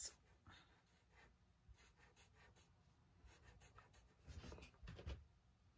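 Faint scratching of a Sharpie marker tip drawing short zigzag strokes on paper, a little louder about four seconds in.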